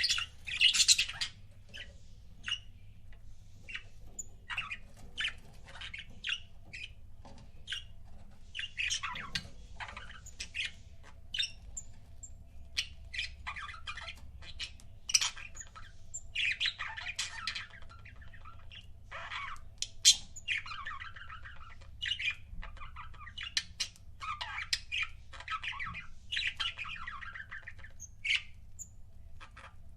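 Budgerigars chattering: short chirps and harsher squawks in quick, irregular runs, with longer warbling stretches of chatter every few seconds.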